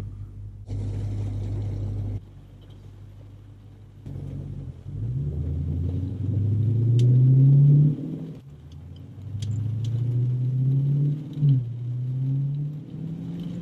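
Dodge Challenger Scat Pack 1320's 6.4-litre HEMI V8 idling steadily, then pulling away and climbing in pitch through the gears, dropping back at each of two upshifts, heard from inside the cabin.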